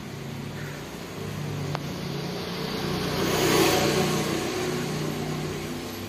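A motor vehicle passing by, its engine and road noise swelling to a peak a little past halfway and then fading, with a single sharp tick before the peak.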